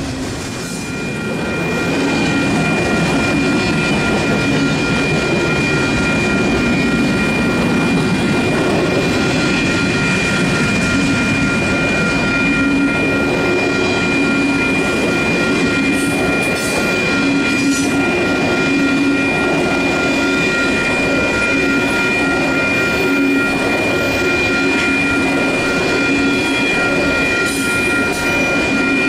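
Intermodal freight train's double-stack and trailer cars rolling steadily past, wheels rumbling on the rails, with steady high ringing tones over the rumble.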